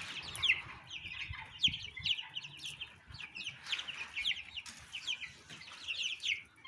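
Young chicken chicks peeping, a crowd of short, high, falling peeps overlapping without a break.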